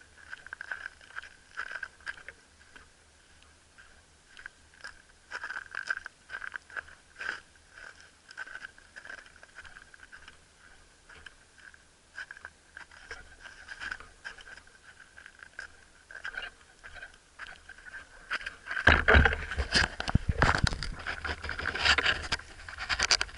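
Faint scattered clicks and scraping handling noise picked up by a spearfisher's action camera, over a faint steady whine. From about 19 seconds in, loud irregular rumbling and knocking noise takes over.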